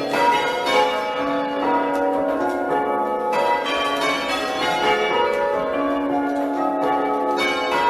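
Six church bells being change rung half-muffled, alternating clear rows with muffled rows in which the strikes sound duller. The bells strike one after another in a continuous, even sequence.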